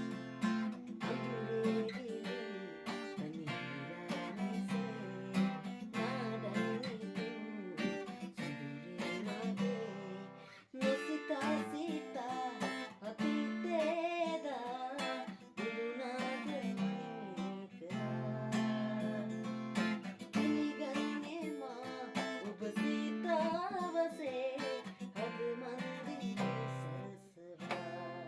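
Background music: acoustic guitar strumming and picking with a sung vocal line.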